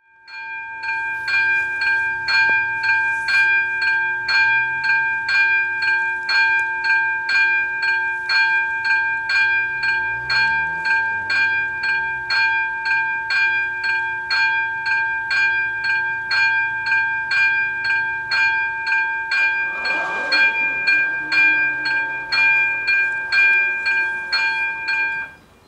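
Electronic level-crossing bell (AŽD ZV-02) ringing at about two strikes a second, sounding the warning while the crossing's red light flashes and the barriers lower. It stops abruptly near the end, once the barriers are down.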